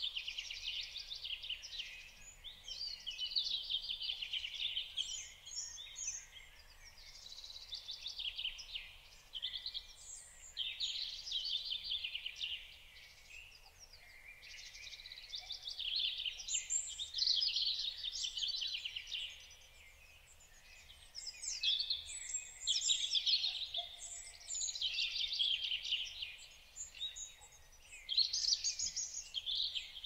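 Several small songbirds singing, one short trilled phrase after another with songs overlapping, each phrase a second or two long, with brief lulls between bursts.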